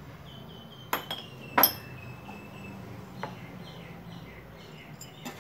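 A kitchen utensil clinking against a glass mixing bowl while spice powder is added: a few sharp clinks, the loudest about a second and a half in, then single fainter ones later.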